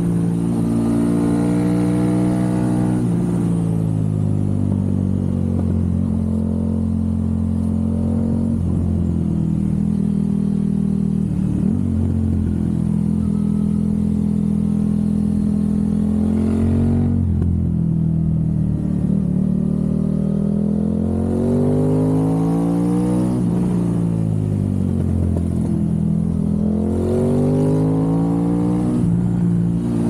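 Aprilia RS660's parallel-twin engine through a Mivv Delta Race exhaust, under way on the road. The engine note falls over the first few seconds and then holds steady for a long stretch. It drops a little past halfway, then rises, dips and climbs again as the bike pulls through the bends.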